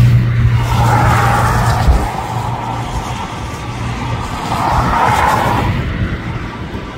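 Road vehicles passing on a wet road: tyre hiss swells about a second in and again around five seconds, over a steady low engine hum that fades after about two seconds.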